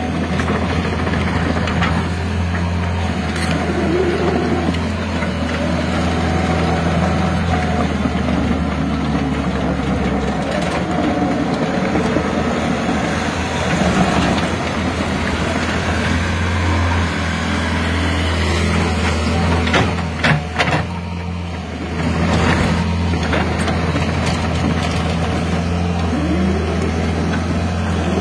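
Kobelco SK120-1 excavator's diesel engine running steadily as the machine swings and digs, its note rising and falling a little with the load. A few sharp knocks come about two-thirds of the way through.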